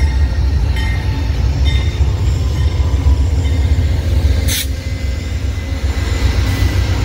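Amtrak Coast Starlight passenger train passing at close range: the GE Genesis P42DC diesel locomotives give a loud, steady low rumble, with wheel and rail noise. There is a brief sharp burst of noise about four and a half seconds in.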